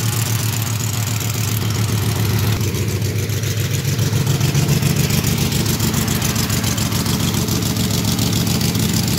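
A car engine running steadily with the air conditioning blowing, heard inside the cabin: an even low hum under a broad rush of air, swelling slightly midway.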